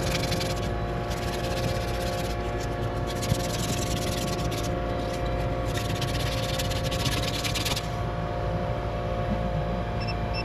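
Carrier 2-ton condensing unit running with its newly replaced scroll compressor and condenser fan: a steady mechanical hum with a few steady tones. A rushing hiss comes and goes over it and stops about eight seconds in.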